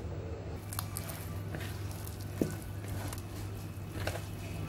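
Hands kneading and squeezing shaggy pizza dough in a plastic bowl: soft squishing with a few light clicks and one small knock, over a steady low hum.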